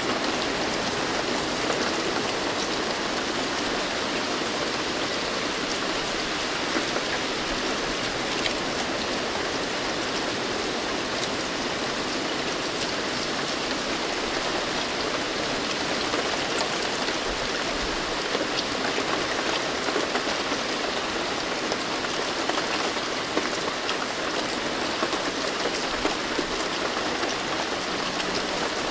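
Steady rain falling, an even dense hiss with individual drops pattering through it.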